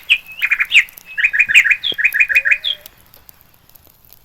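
Bird chirping in quick runs of short, high chirps that stop about three seconds in.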